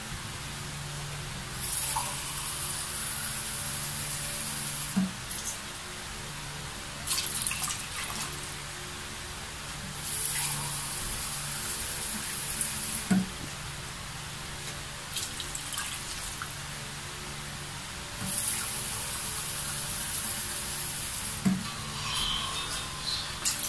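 Water being run and poured by the cupful into a pot of pork, in four spells of a few seconds each, with a few light knocks of the cup in between.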